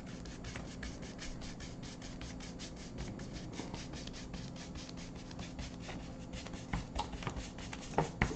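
Paintbrush scrubbing acrylic paint across a canvas in quick back-and-forth strokes: a rhythmic bristly rasp about four or five strokes a second, with a few light knocks near the end.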